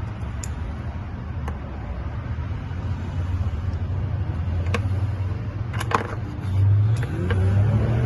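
A steady low engine-like hum that swells louder over the last second and a half, with a handful of sharp clicks and clinks scattered through it.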